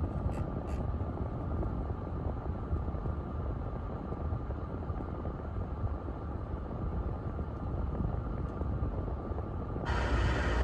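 Steady low rumble of car cabin noise with faint hiss while the car radio sits on weak or empty FM frequencies and plays no station audio. A brief brighter burst of sound comes in near the end as the tuner changes frequency.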